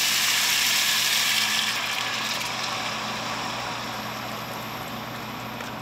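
Chicken broth poured from a carton into a hot pan of seared potatoes and carrots, hissing and sizzling loudly at first and dying down steadily as the liquid covers the pan.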